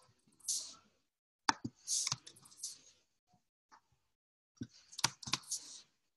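Computer mouse clicks: a pair of sharp clicks about a second and a half in and another pair near five seconds, with short soft hisses between them.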